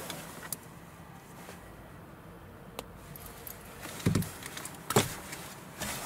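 Faint handling noises as hands work a wire and small plastic connector through a car's door trim. There is a soft click about three seconds in, then two knocks about a second apart near the end, the second one sharper and louder.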